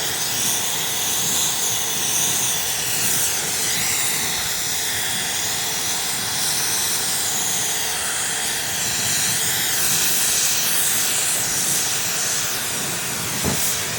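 Steady hissing rush of a torch flame and forced air burning out a two-stroke silencer clogged with unburnt oil and carbon.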